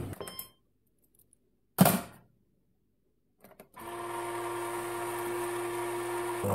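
Bean-to-cup coffee machine starting a brew. There is a short knock about two seconds in and a few faint clicks. Then, just before the four-second mark, the machine's motor starts a steady, even hum.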